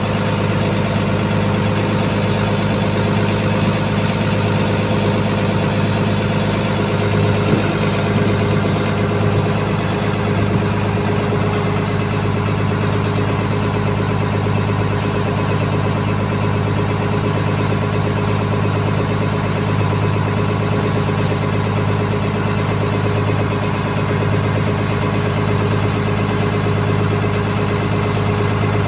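Boat engine running steadily, an even drone with a low hum that holds at one pitch throughout.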